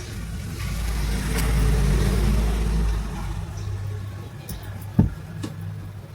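Small electric water pump motor running with a steady mains hum, under a low rumble for the first three seconds; one sharp click about five seconds in.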